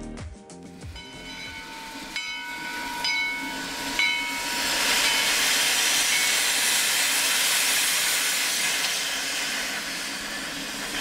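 Shay geared steam locomotive standing and venting steam, with a loud, steady hiss from about four seconds in. Before the hiss comes a fainter held tone with a few short higher pips.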